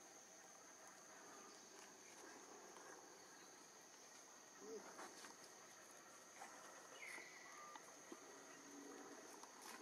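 Near silence: faint outdoor ambience with a steady high-pitched insect drone and a few faint short chirps, one falling in pitch, in the second half.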